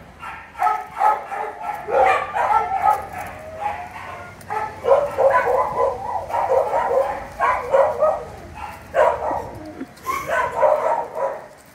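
Dogs barking and yipping in short, repeated bursts.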